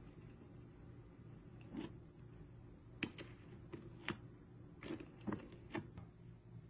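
A knife blade scraping a green powder coating off a small round food item on a ceramic plate: a handful of faint, short scrapes and clicks of steel on food and china, over a low steady hum.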